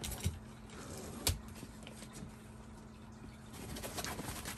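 A small dog moving about in a folding wagon's fabric bed: its paws scrabble and rustle on the fabric, with two sharp knocks in the first second and a half and more rustling near the end.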